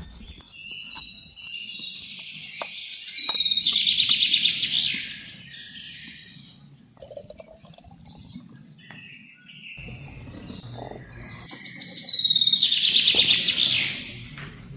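A bird singing: two loud, fast trilling phrases about nine seconds apart, with softer chirps between them.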